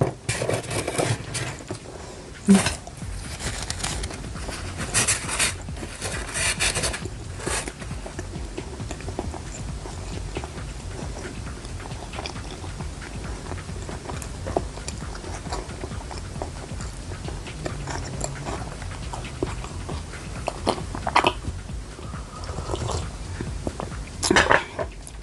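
Eating sounds: bites and chewing of fried street food, with short crunchy bursts clustered in the first few seconds and again near the end. Background music plays under it.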